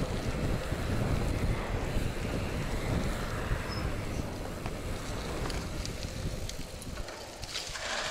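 Wind buffeting the microphone of a camera on a bicycle being ridden fast on asphalt, with road rumble; the low rumble drops away about seven seconds in.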